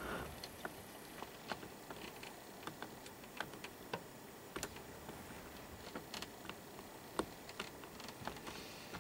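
Faint, irregular small clicks and ticks, roughly one to three a second, over a low background hiss.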